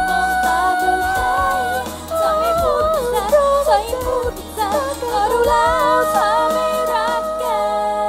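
Thai pop song with female singing over a beat and bass line. A note is held at first, then about two seconds in the voice moves into a melody with quick runs and bends.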